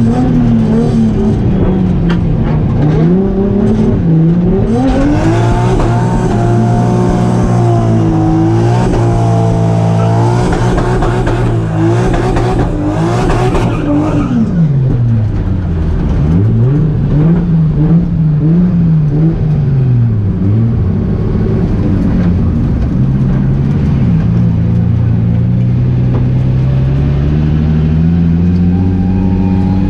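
Drift car engine revving up and down again and again over a steadier lower engine note, with a broad hiss of noise through the middle.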